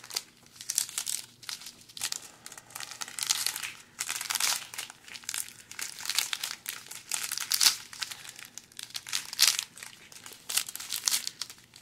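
Small clear plastic bags of diamond-painting drills crinkling as they are handled and flipped, in irregular rustles throughout.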